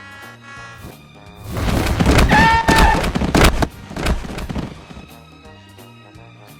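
Music, broken a second and a half in by about two seconds of loud noisy bangs and crashes, then quieter music again.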